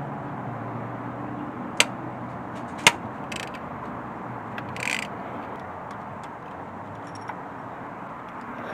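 Engine parts and hand tools being handled: two sharp clicks about two and three seconds in, then a few lighter taps, over a steady background hum.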